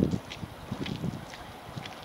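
Footsteps on wet, silt-covered pavement, about two steps a second, with a gusty rumble of wind on the microphone at the start.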